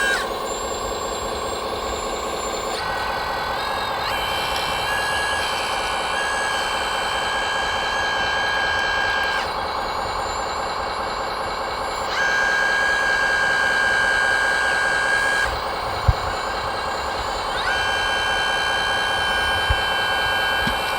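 Electric drive and gear whine of radio-controlled model trucks and construction machines: a high steady whine that starts and stops several times, sometimes sliding up as it starts, over a continuous mechanical hum. Two short knocks come near the end.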